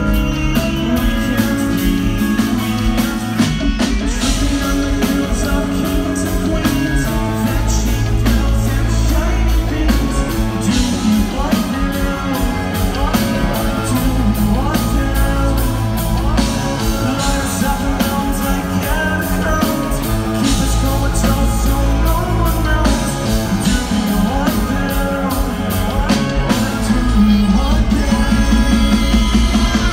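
Rock band playing live at a sound check: drum kit, electric guitars and bass guitar playing a song, loud and continuous.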